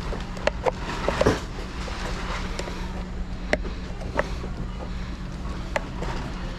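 Scattered sharp clicks and taps of hand tools working open the case of a vehicle control module (VCM), over a steady low hum.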